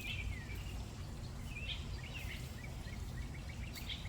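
Songbirds calling: several short downward-slurred calls, then a quick run of short chirps at about four a second in the second half, over a low steady outdoor rumble.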